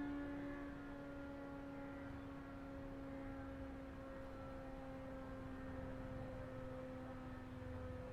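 ACA Hurricane 130 MKII outdoor warning siren winding down at the end of its alert signal. A faint low tone sinks slowly in pitch as the siren coasts toward a stop, its higher overtones fading away in the first second.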